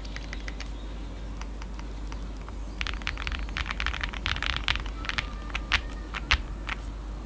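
Typing on a Zoom TKL mechanical keyboard with lubed JWK Bluey switches and GMK keycaps. Scattered keystrokes come first, then a fast flurry of keystrokes a few seconds in, then a handful of single key presses near the end.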